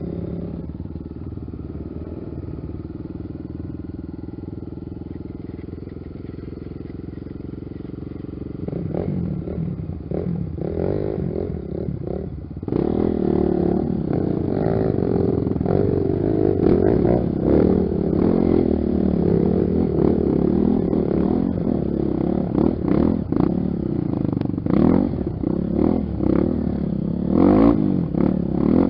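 Honda XR 250 Tornado trail bike's single-cylinder four-stroke engine running steadily at low revs, then picking up about nine seconds in. From about thirteen seconds in it turns louder, revving up and down as the bike is ridden.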